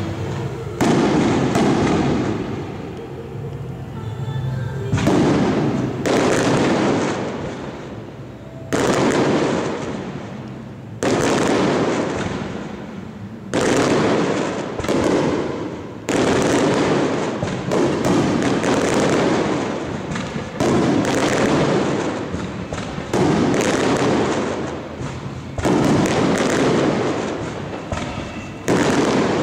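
Aerial firework shells bursting one after another: about a dozen loud booms, two to three seconds apart, each trailing off in a fading echo.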